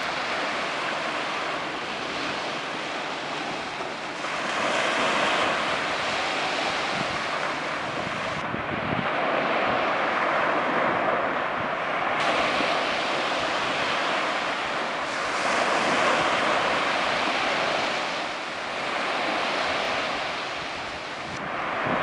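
Small sea waves breaking and washing up a sandy beach: a continuous surf wash that surges and eases every few seconds.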